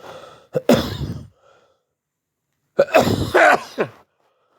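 A person's voice in two short bursts, the second longer, with the sound of throat clearing or coughing rather than words.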